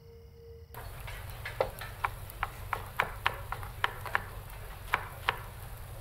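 Faint room tone with a steady low tone, then, a little under a second in, restaurant kitchen ambience: irregular clinks and clatters of metal utensils and dishes over a steady hum and a faint hiss like grill sizzle.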